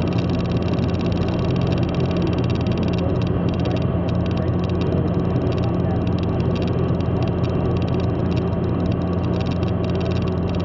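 Car cabin noise at steady motorway speed: a constant low engine drone under the hiss of tyres on the road.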